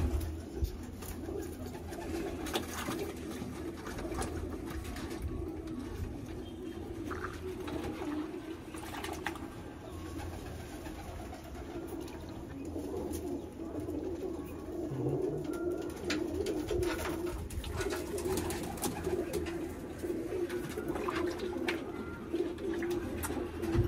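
Pigeons cooing without a break in the loft, with scattered short splashes and wing flaps as birds are dipped in a bucket of water and released.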